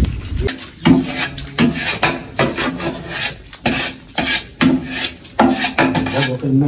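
Metal ladle scraping around the inside of a large cooking pot while stirring, in repeated rasping strokes a little more than one a second.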